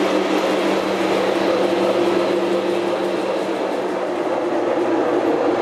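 O gauge model train running on three-rail track: a steady rumble of wheels on the rails with a steady electric hum.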